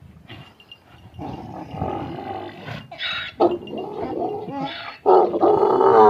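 Donkey braying: groaning, wheezy breaths that build up and break into a loud bray about five seconds in.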